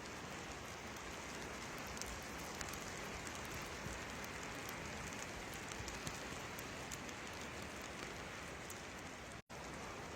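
Steady hiss of storm precipitation with many fine ticks of it striking surfaces, cutting out for an instant near the end.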